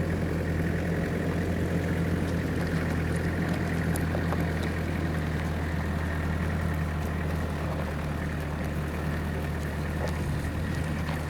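Truck engine running steadily at a constant speed, a low even hum that does not rise or fall.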